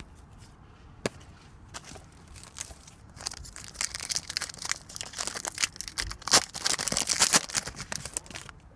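Wrapper of an Upper Deck football card pack being torn open and crinkled: a few light crackles at first, then a dense crackling rustle from about three seconds in that stops shortly before the end.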